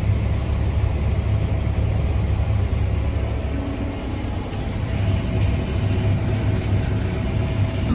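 Combine harvester's diesel engine running steadily, heard as an even low hum.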